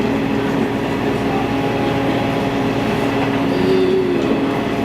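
Passenger train running: a steady drone with continuous rolling noise.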